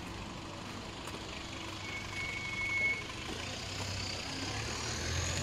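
Street traffic: a vehicle's engine hum that grows louder toward the end. About two seconds in there is a single short high beep.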